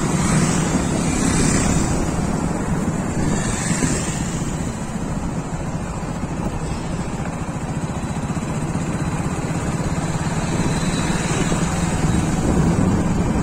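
Riding on a two-wheeler: wind rushing over the microphone over a steady engine hum and road noise, with a few brief gusts in the first four seconds.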